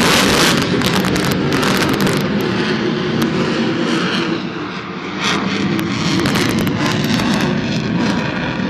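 Sukhoi Su-35 twin-engine fighter jet flying a display overhead: loud, steady jet-engine noise with a ragged crackle. It eases briefly about five seconds in, then swells again.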